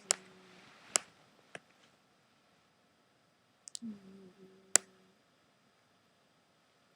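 Sleeping cat snoring: a low, humming snore lasting about a second, once at the start and again about four seconds in, each breath with a few sharp clicks.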